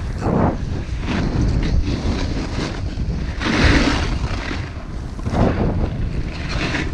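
Wind buffeting the microphone during a snowboard descent, a steady low rumble, with the board's edge hissing through the snow in several surges as it turns, the loudest about three and a half seconds in.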